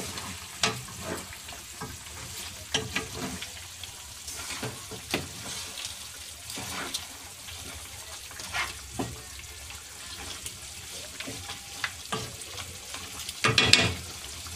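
Wooden spatula stirring and scraping chicken in a thick sauce in a granite-coated pan, with irregular scrapes and knocks over a low sizzle from the simmering pan. A louder clatter comes near the end.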